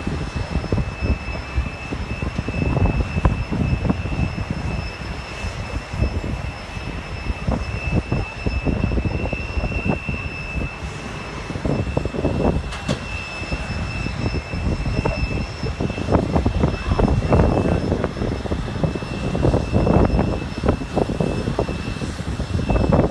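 Steady high-pitched whine of jet aircraft engines, over a rough, uneven low rumble.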